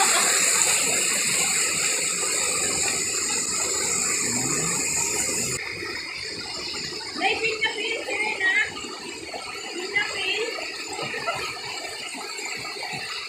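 Stream water rushing over rock in a small cascade, a steady hiss that drops off sharply about halfway through, leaving softer water noise with irregular rattly clicks and a few short high chirps.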